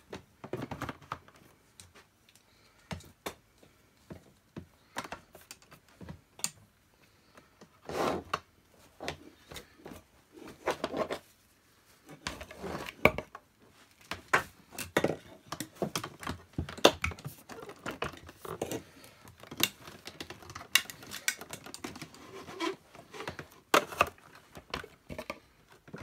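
Irregular plastic clicks, knocks and scrapes as a Hoover PurePower Enigma vacuum cleaner's hose is fitted back onto the machine by hand. The handling is sparse at first and gets busier about a third of the way in.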